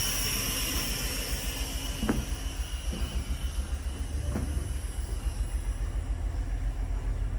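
Passenger train running along the track: a steady low rumble, with a high squeal that fades over the first few seconds and a couple of short knocks from the running gear.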